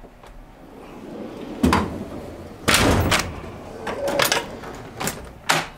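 Steel drawers of a Snap-on Epiq tool box sliding on their runners and shutting, with tools rattling inside: a rolling slide, then a series of metal clunks and knocks, the loudest about three seconds in.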